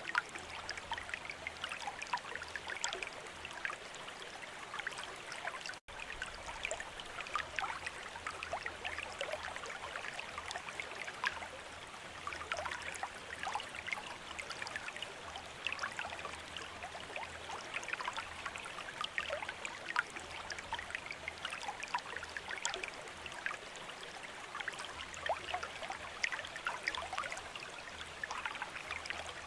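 Bamboo water fountain trickling steadily, water running and splashing into a basin with many small drips and plinks. The sound cuts out for an instant about six seconds in.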